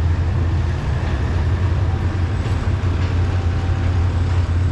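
Diesel train engine running steadily with a deep, even hum.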